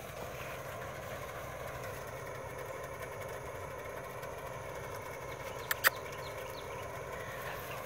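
A steady engine hum, with two sharp clicks close together about six seconds in.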